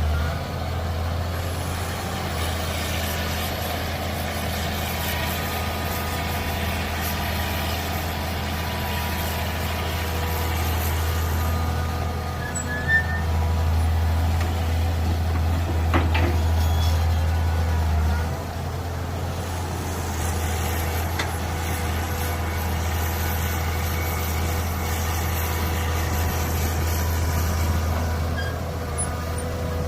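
Mini excavator's diesel engine running steadily with its hydraulics working. It gets louder for a few seconds in the middle, as under load, and there is one brief sharp knock.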